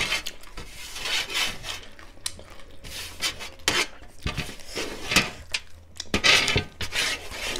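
Close-up crunching and chewing of dry chatpate, a crisp puffed-rice snack, in irregular crunchy bursts with a few short clicks.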